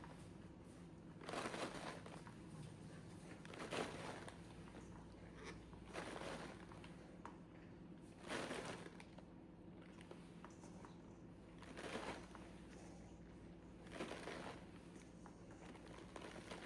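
Faint crinkling of a plastic bag in short swishes about every two seconds as grated cheese is slowly put into it.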